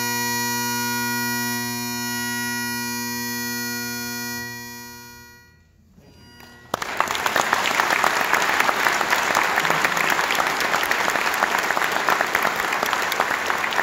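A tune ends on a long held chord over a steady drone, which fades out about five seconds in. After a brief hush, the audience breaks into applause that carries on.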